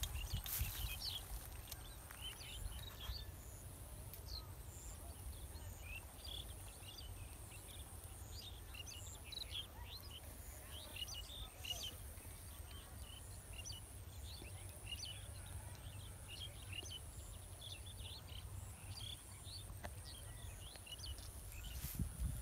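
Birds chirping: many short, quick calls come and go irregularly over a faint, steady low rumble.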